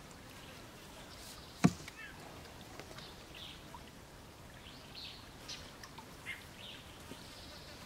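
A single sharp knock about a second and a half in, over a quiet background with faint, short bird chirps scattered through.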